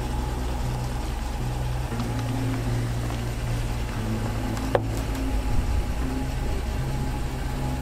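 2022 Ram 1500 Backcountry's engine running with a steady low hum as the truck creeps over an off-road obstacle, with a single sharp knock about five seconds in.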